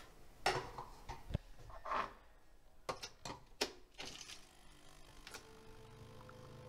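A series of sharp plastic clicks and clunks from a Nespresso capsule coffee machine being handled and its lever worked, about eight in the first five seconds. A faint steady tone comes in near the end.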